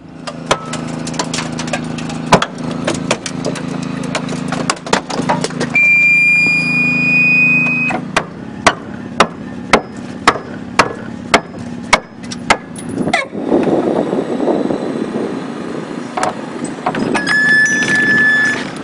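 Hydraulic rescue tool power unit running steadily while a rescue ram rolls a car's dashboard forward, the metal creaking and popping, with a high squeal for a couple of seconds. Midway, about nine sharp metal strikes come at roughly two a second, and a second brief squeal follows near the end.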